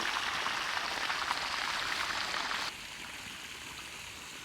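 Steady rushing, hissing noise that sounds like water, dropping abruptly to a fainter hiss about two and a half seconds in.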